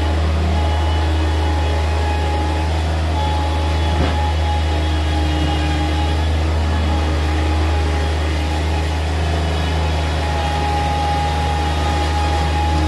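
Bobcat MT100 stand-on mini track loader's engine running steadily with a low hum, with a single knock about four seconds in.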